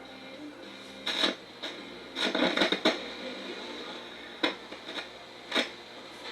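Yorx clock radio's speaker crackling in short irregular bursts of static over a faint hiss, thickest about two seconds in, as its controls are worked: the sign of its bad, touchy controls, which have to be wiggled to get reception.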